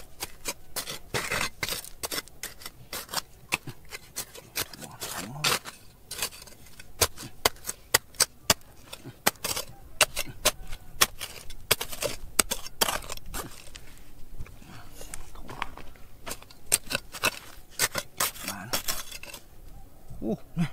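A digging tool scraping and striking hard stone in quick, irregular sharp clicks.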